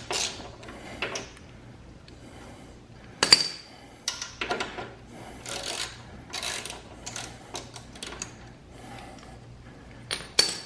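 Hand tools undoing the bolts that hold a motorcycle's catalytic converter to the exhaust headers: scattered metallic clicks and scrapes, with a sharp metal clink about three seconds in and another near the end.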